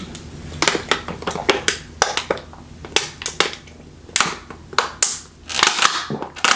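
Drinking from a thin plastic water bottle: gulps of water and the bottle crinkling and crackling in the hand, in a run of sharp, irregular clicks.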